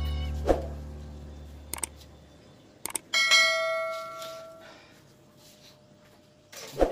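Guitar music fading out over the first couple of seconds, with a few light clicks. About three seconds in comes a single bell-like ring that dies away over about a second and a half, and a sharp knock near the end.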